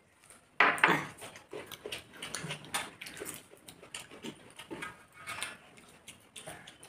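Close-up eating sounds: chewing, lip smacking and mouth noises, with fingers mixing biryani rice on metal plates. They come as irregular clicks and knocks, and the loudest is a sharp knock about half a second in.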